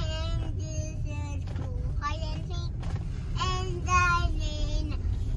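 A toddler singing in short phrases over the low, steady rumble of a moving car, heard from inside the cabin.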